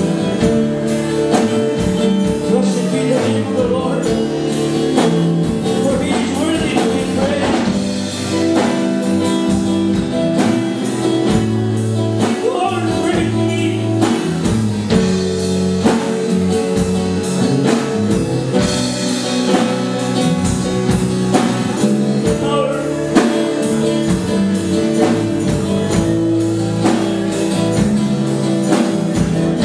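Live church worship band playing a song with drums and guitars, with singing over it.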